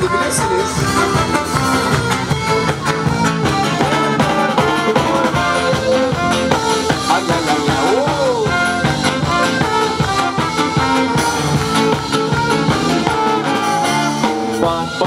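Live band with accordion, guitar and drum kit playing an upbeat instrumental passage of a song, with a steady beat.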